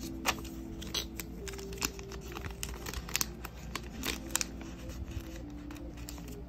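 Clear plastic binder pocket sleeves crinkling and rustling as nail sticker sheets are slid into them and pressed flat, with irregular sharp crackles.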